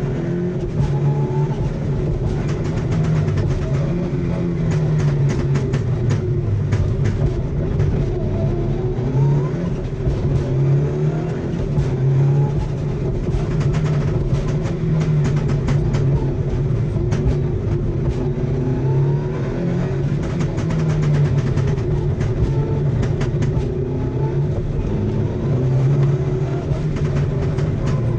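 Mitsubishi Lancer Evo VI rally car's turbocharged four-cylinder, heard from inside the cabin, revving up and down through the gears. Several times it breaks into rapid strings of pops and bangs from its anti-lag misfiring system.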